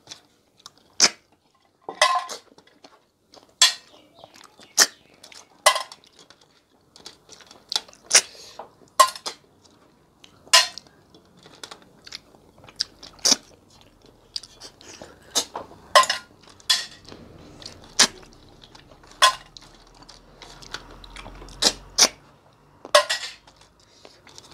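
Cooked river snails (tharoi) being sucked out of their shells by two people eating with their fingers: short, sharp sucking slurps at irregular gaps of about a second, with light clinks of shells on a steel plate.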